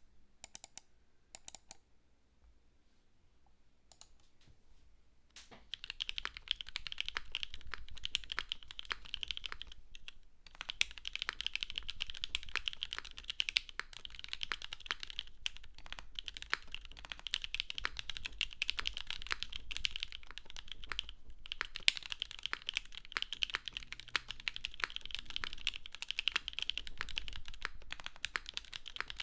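Typing on a custom mechanical keyboard: a Moontower v2 with polycarbonate case, full aluminium plate, lubed NovelKeys Cream linear switches and GMK keycaps. A few scattered keystrokes at first, then steady fast typing from about six seconds in, with a couple of short pauses.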